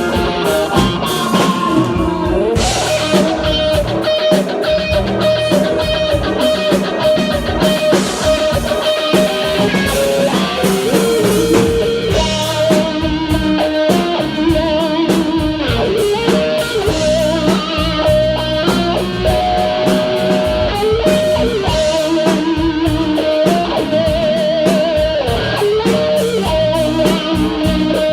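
Live rock band playing, with electric guitar to the fore over a drum kit.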